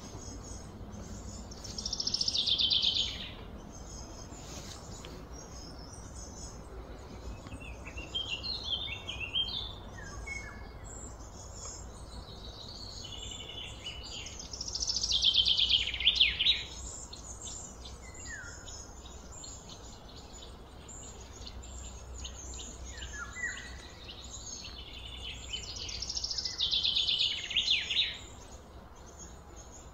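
Birdsong: a bird sings a loud, rapid trilled phrase that falls in pitch, three times about twelve seconds apart. Fainter chirps come in between, over a steady low outdoor background.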